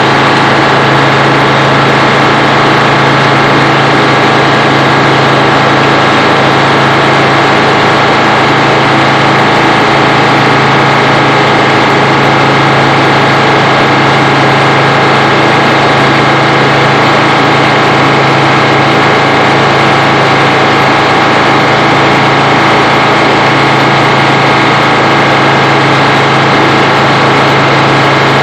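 GM Detroit Diesel engine running steadily at an even speed, powering a Frick circular sawmill.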